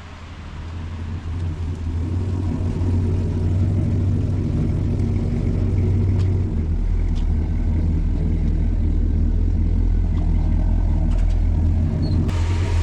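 A car engine running with a deep, steady rumble that builds over the first couple of seconds and drops lower in pitch about halfway through.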